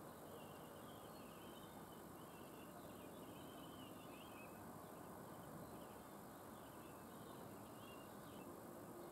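Faint small birds chirping and twittering in quick, wavering calls over a steady background hiss.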